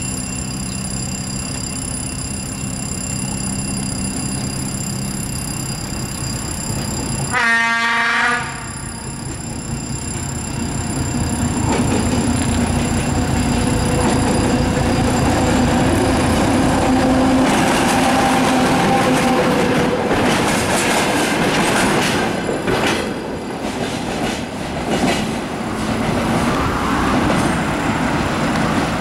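ChME3 diesel shunting locomotive gives one short horn blast about seven seconds in. It then draws closer and passes, its diesel engine running under load. Freight wagons follow, clattering over the rail joints, with some wheel squeal.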